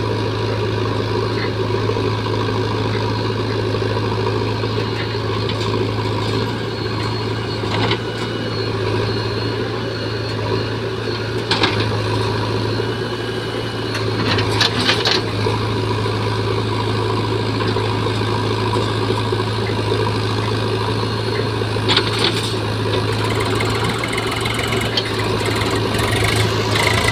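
Diesel engines of a JCB 3DX backhoe loader and a Swaraj 735 FE tractor idling steadily, with a few short knocks.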